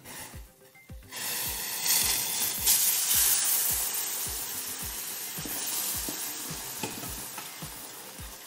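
Boiling water poured into hot ghee-roasted semolina in a pan, hissing and sizzling loudly from about a second in, then slowly dying down.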